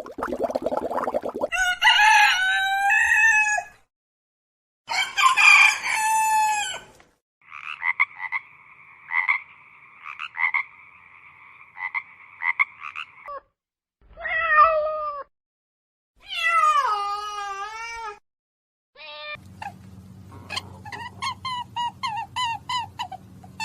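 A series of separate animal calls with short gaps: two rooster crows, a long, steady, pulsing frog trill, a few shorter calls including a falling one, and a run of rapid chirps near the end.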